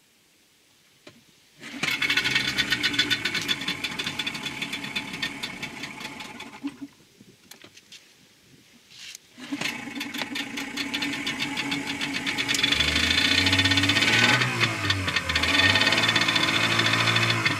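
Parsun 40 hp two-stroke outboard starting from cold after a long lay-up. It catches about two seconds in, runs for about five seconds and dies, then catches again about nine seconds in and runs on, getting louder and faster from about twelve seconds.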